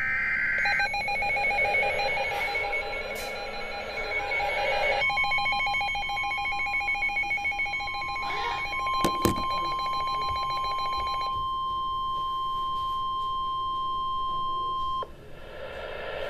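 NOAA Weather Radio Emergency Alert System activation. A brief burst of SAME digital header tones is followed by pulsed electronic alarm beeping. About five seconds in, the steady 1050 Hz Weather Radio warning tone starts. The beeping stops partway through, and the tone holds for about ten seconds and then cuts off suddenly, signalling an incoming warning.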